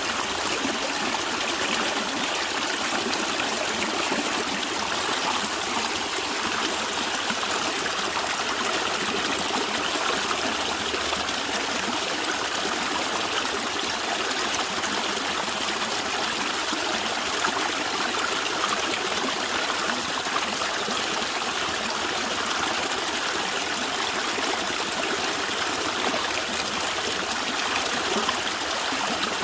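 Natural stream of running water gurgling and trickling steadily.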